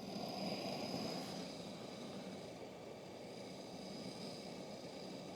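Camping stove burner turned up high, hissing steadily under a pot of water that is coming to the boil.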